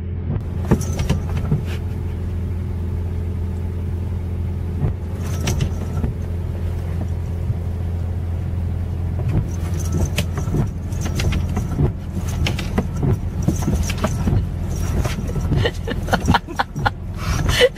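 Steady low hum of a car running, heard from inside the cabin. Over it come windshield wipers sweeping a rain-wet windshield and scattered sharp taps and scrapes on the glass, which grow much more frequent in the second half.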